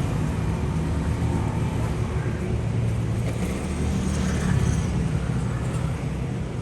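An engine running steadily with a low hum under a wash of outdoor noise.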